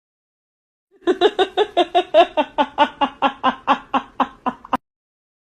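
Laughter in quick, even 'ha-ha-ha' pulses, about four or five a second, that cuts off suddenly.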